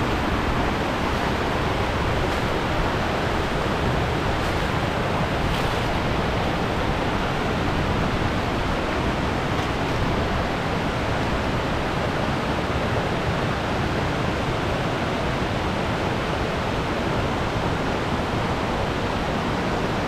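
Waterfall running: a steady, loud rush of falling water, even and unbroken.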